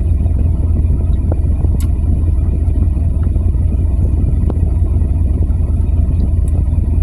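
Steady low rumble of a running vehicle engine, with a few faint ticks.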